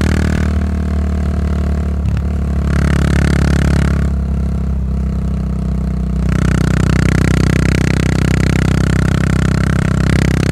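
Yamaha SR400's air-cooled single-cylinder engine running through a Goods tapered cone slip-on muffler while riding. The exhaust note softens twice for a couple of seconds and then comes back fuller.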